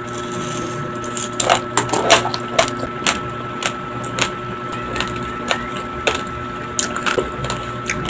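Raw, uncooked medium-grain white rice being chewed: a run of sharp, irregular cracks and crunches, densest in the first few seconds, over a faint steady hum.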